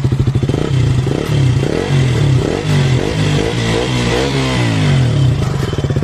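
KTM RC 200's single-cylinder engine running through an Akrapovic slip-on exhaust with its dB killer fitted: idling, then revved in a quick series of throttle blips, each rising and falling in pitch, settling back to idle near the end.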